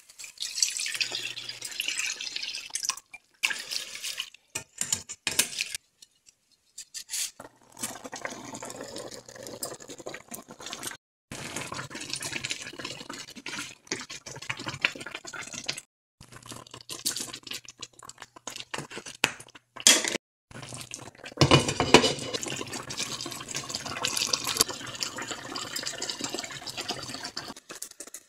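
Cooking sounds in short clips with sudden cuts: water poured from a glass measuring cup into a pan of simmering cream sauce, then the sauce bubbling while a plastic spoon stirs the pork chops and carrots.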